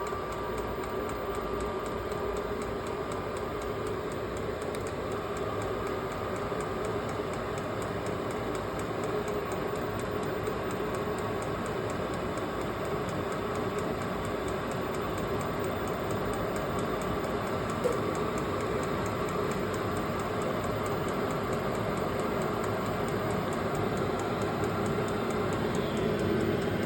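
VEVOR 12 V 8 kW diesel air heater running through its cold start-up: a steady fan whir with the fuel pump ticking, growing slowly louder as the heater works up toward full power before giving any heat.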